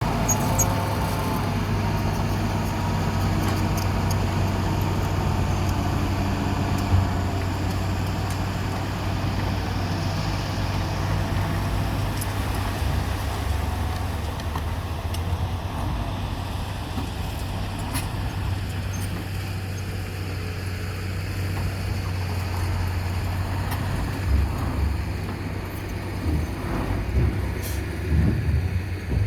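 Twelve-wheel dump truck's diesel engine running steadily, with a few knocks and thumps near the end.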